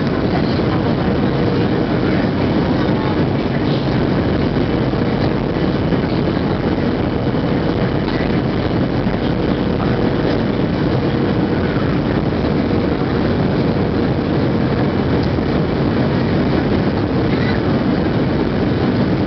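Steady in-flight cabin noise of a Boeing 737-700 with CFM56-7B engines, heard from a seat by the wing: an even rush of airflow and engine noise, with a faint steady tone under it.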